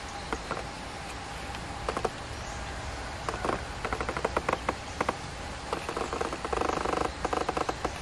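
Bulbul giving bursts of rapid chattering notes, starting about three seconds in and growing denser toward the end, over a steady hiss of falling rain.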